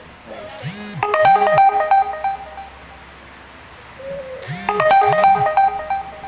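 A mobile phone ringtone: a short jingle of bright chime-like notes, played twice about four seconds apart.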